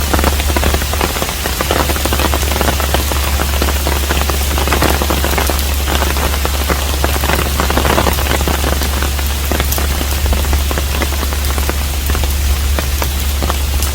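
Steady rain falling on a hanok, a traditional Korean house, with many separate drops heard over an even rush. A steady low hum runs underneath.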